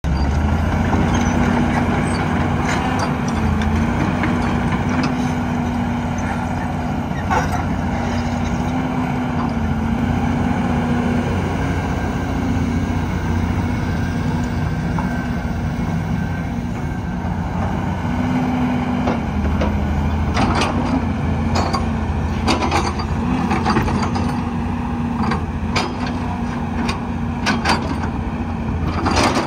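Volvo EC210B hydraulic excavator working: the diesel engine runs under load with a steady hydraulic whine that dips and rises slightly in pitch as the boom, arm and swing are operated. Scattered sharp knocks and clanks come through in the last several seconds.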